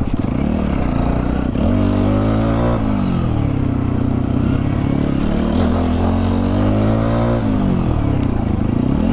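Motorcycle engine of a TVS Apache RTR 160 4V running under way on rough ground. The revs climb and fall sharply twice as the throttle is worked.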